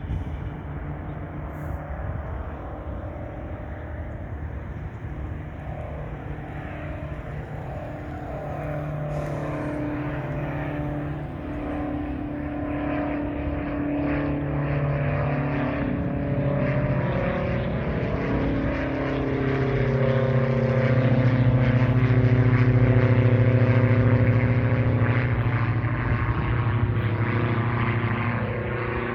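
Diamond DA42 Twin Star's twin propeller engines droning as the aircraft takes off. The drone grows louder to a peak about three quarters of the way through, then eases slightly, and its tones shift in pitch along the way.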